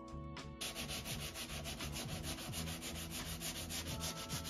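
A small handheld scraper rubbed quickly back and forth over the oak credenza's frame, starting about half a second in. It makes an even rasping rhythm of about seven strokes a second.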